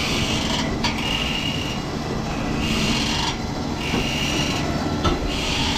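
Strong wind and rain on a catamaran at sea, a steady low hum underneath and a hissing surge coming back about every second and a half.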